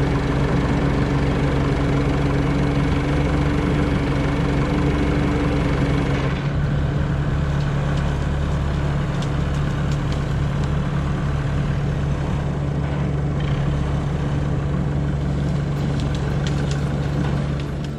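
Diesel engines of a Leyland 262 tractor and a Komatsu PC16 mini excavator running steadily at idle. About six seconds in the sound changes: the higher engine tone drops out and one steady low engine note carries on.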